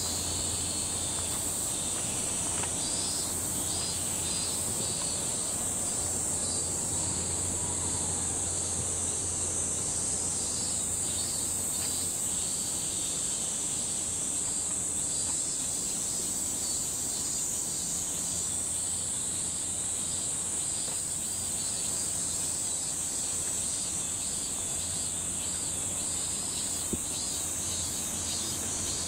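Cicadas droning steadily at a high pitch in the trees, with a softer rhythmic pulsing of insect calls beneath. A low steady hum of distant city noise sits under it, fading out midway and returning near the end.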